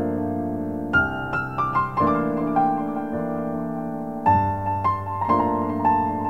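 Background piano music: a slow melody of single struck notes over held chords.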